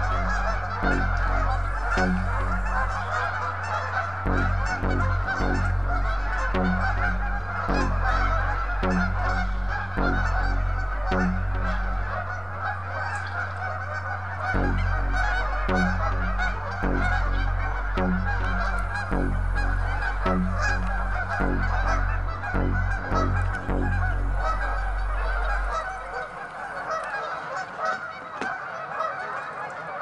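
A large flock of Canada geese honking continuously, many calls overlapping one another. A low rumble runs underneath and drops away near the end.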